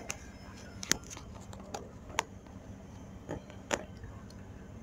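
Several sharp, irregularly spaced clicks and light scrapes of a test-light probe and fingers working a plastic wiring connector and the surrounding plastic trim, over a faint steady hum.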